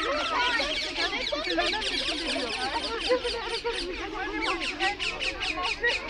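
Rose-ringed parakeets squawking: a dense chorus of shrill, rapidly repeated calls from many birds at once.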